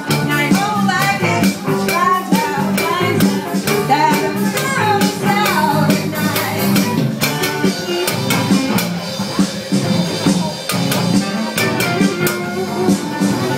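Music with a steady beat: drums and shaker-like percussion over a repeating bass line, with a wavering melodic line in the first few seconds.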